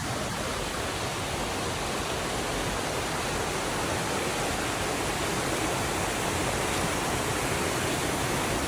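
Rushing river water at a falls: a steady, even rush with no breaks.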